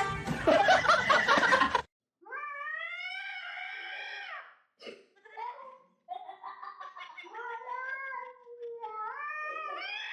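A cat yowling in long, drawn-out meows that rise and fall in pitch, with a few short calls in between. This comes after about two seconds of loud, mixed noise that cuts off suddenly.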